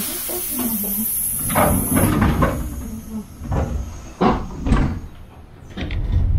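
Sapporo streetcar running, heard from inside the car: a low rumble from wheels and running gear, a hiss in the first two seconds, and a series of clacks and rattles.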